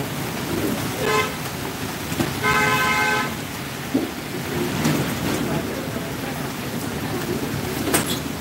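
Heavy rain pouring on a street, with a vehicle horn honking twice: a short toot about a second in and a longer one at about two and a half seconds. A sharp click near the end.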